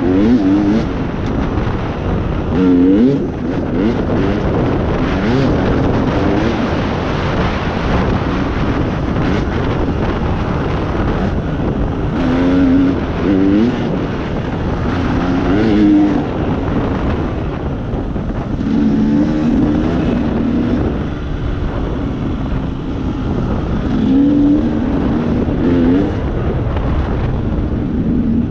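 A vehicle engine running under way, its pitch rising and falling in short revs every few seconds, over a steady heavy rush of wind and travel noise.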